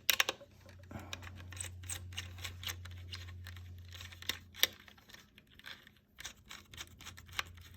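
Hands handling wires and small plastic and metal parts: irregular clicks, taps and rustles over a low steady hum that fades about five seconds in.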